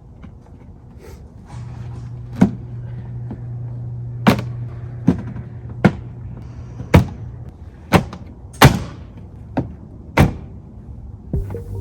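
A diffuser being fitted to a BMW E92's rear bumper: about nine sharp knocks and snaps at uneven intervals as it is pushed onto its clips.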